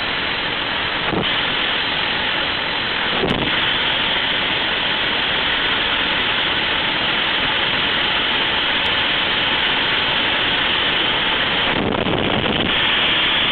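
Steady, loud rushing noise around a business jet's engine as its target-type (clamshell) thrust reverser is cycled. Short swells come about a second in and after about three seconds, and a longer one near the end as the reverser buckets swing open.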